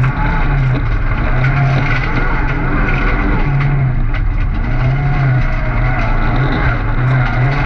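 Opel Astra autocross car's engine, heard from inside the cockpit while racing on a dirt track. It runs loud and steady, with revs that keep rising and falling.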